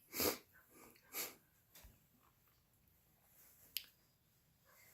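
Quiet room with a couple of soft, brief rustles early on and one sharp click about three and three-quarter seconds in.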